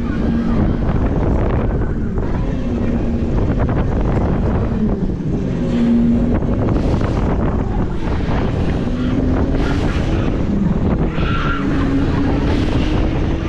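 Wind rushing over the microphone as the Dartron Hurricane spinning ride whirls at full speed, with a low hum from the ride wavering up and down in pitch every second or two.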